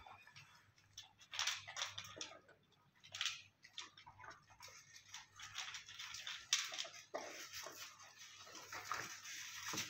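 A cat crunching dry kibble from a bowl, in short irregular runs of crackly chewing with brief pauses between.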